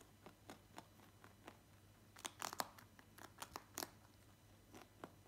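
A lop-eared rabbit crunching and nibbling a hard treat: faint, irregular small crunches, coming thicker and faster about two to four seconds in.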